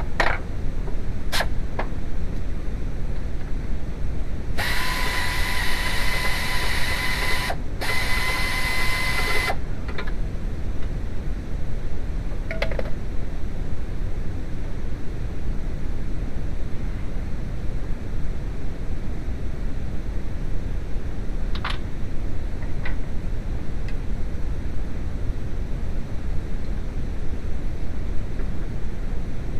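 A power tool runs in two bursts, about three seconds and then two, with a steady high whine over a rushing noise, while the pump is being taken off. A few sharp clicks of metal tools sound around it over a steady low hum.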